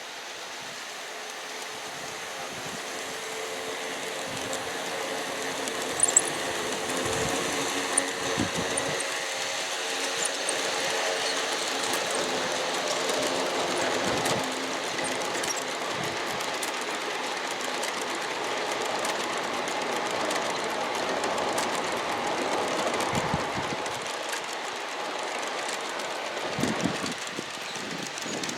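G-scale Aristo-Craft model train with diesel locomotives and hopper cars rolling along outdoor track: a steady electric-motor and gear hum with wheel noise, getting louder over the first few seconds, with sharp clicks now and then.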